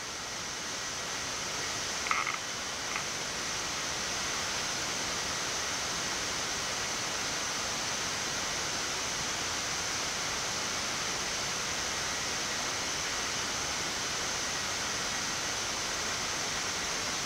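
Steady rushing hiss of airflow in a Boeing 787 flight deck during descent, building slightly over the first few seconds and then holding even. A brief short tone sounds about two seconds in.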